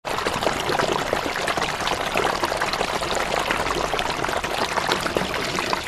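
Dense, steady crackling hiss, full of tiny clicks, that starts abruptly and cuts off suddenly after about six seconds.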